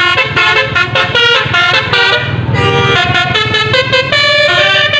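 Bus telolet horn, the multi-tone musical air horn of an Indonesian bus, playing a quick tune of short notes that hop up and down in pitch.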